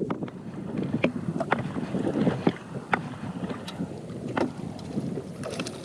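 Wind buffeting the microphone and water lapping against a fishing boat's hull, with scattered sharp clicks and knocks about every second.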